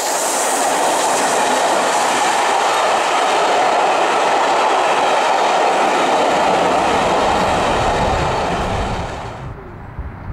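Steam-hauled Pullman train, 35028 Clan Line with its Pullman carriages, passing close by at speed: a loud, steady rush of wheels on the rails that cuts off sharply about nine seconds in.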